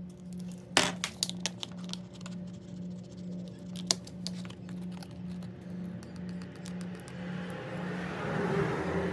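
Background music with a low note pulsing at a steady beat. Several sharp clicks at about a second in and again about four seconds in, and a hiss that swells near the end.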